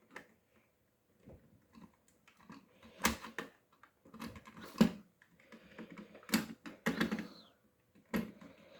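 Irregular clicks and knocks of a headband magnifier's parts being handled and pushed back into place, with a few sharper snaps about 3, 5, 6, 7 and 8 seconds in.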